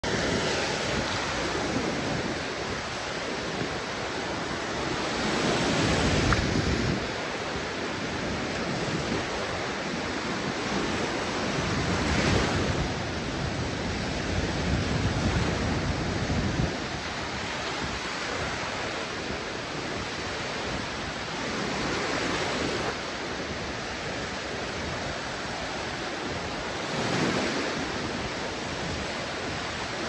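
Small waves breaking and washing up on a sandy shore: a continuous surf hiss that swells every few seconds as each wave comes in.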